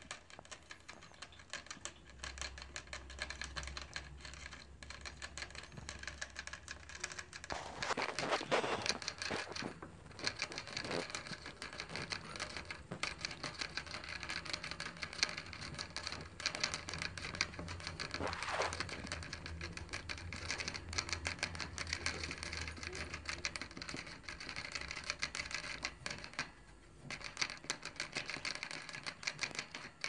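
Pet rats licking at the metal sipper spout of a cage water bottle: a fast, irregular run of small clicks and ticks. Two louder rustling scuffles come about eight and eighteen seconds in.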